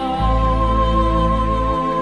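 Slow, soft instrumental background music: sustained wavering tones over a deep bass note that changes near the start and again near the end.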